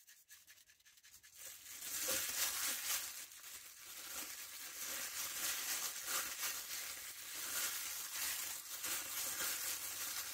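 Plastic bag over a hand crinkling and rubbing as it tosses raw chicken pieces in dry seasoning, a dense continuous rustle that starts about a second and a half in.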